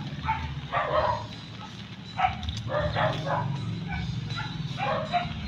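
A dog barking repeatedly in short barks, in clusters of two or three, over a steady low hum.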